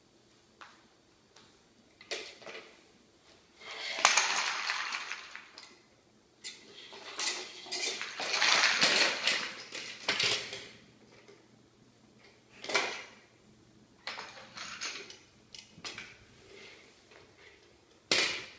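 Plastic pull toys rattling and clattering as they are dragged by their strings over a hardwood floor, in two longer runs of clatter followed by a few separate knocks against the hearth.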